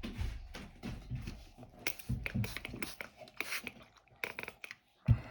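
Pocket-knife blade stroked back and forth across a wet whetstone: a quick, uneven series of short scraping strokes with low knocks, and one louder knock near the end.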